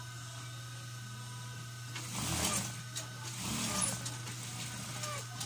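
High-speed sewing machine with a steady low motor hum, running in two short bursts of stitching about two and three and a half seconds in as the foot pedal is pressed, with a couple of clicks.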